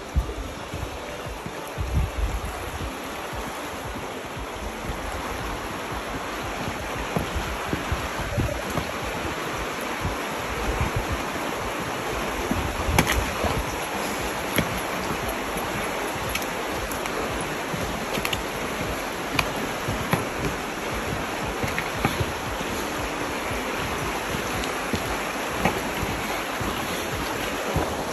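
Wind gusting over the microphone, with irregular low buffeting above a steady rushing hiss. A few sharp clicks are scattered through it, the loudest about thirteen seconds in.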